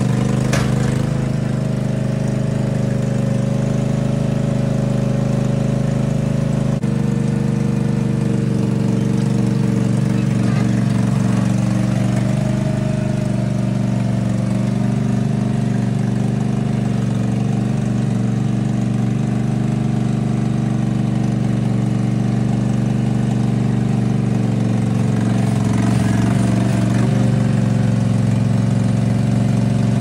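Zero-turn lawnmower engine running steadily as the mower, rebuilt into a small bulldozer, drives and pushes dirt with its blade.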